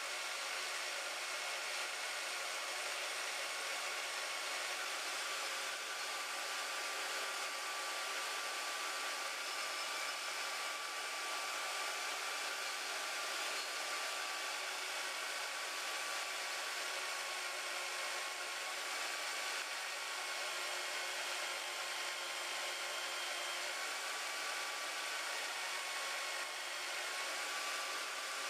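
Harbor Freight band saw running steadily through a slow real-time cut, a continuous motor whir with a faint, slightly wavering whine on top.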